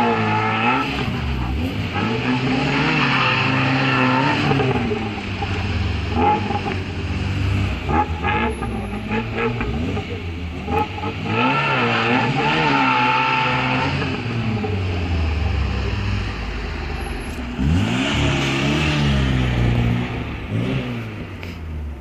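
Tofaş car with a loud, free-flowing aftermarket exhaust, revved up and down again and again while spinning donuts, with tyres squealing on the pavement.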